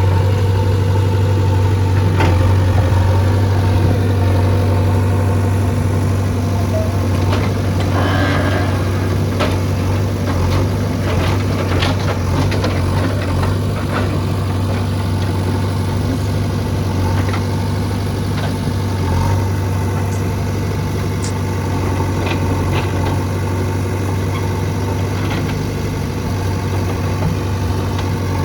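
Backhoe loader's diesel engine running steadily with a deep hum, with scattered knocks and clanks from the machine at work.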